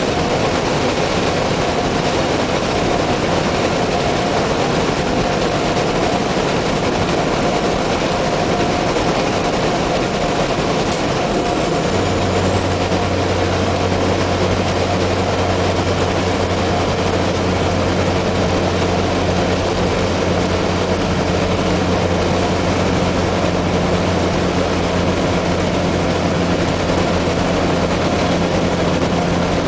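Peterbilt semi-truck's diesel engine and road noise heard inside the cab at highway speed, steady and loud. About twelve seconds in, a deeper engine drone sets in and holds.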